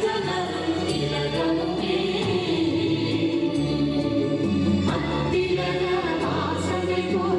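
A song sung by a group of voices with instrumental accompaniment, in long held notes that change about once a second, played loud over outdoor loudspeakers.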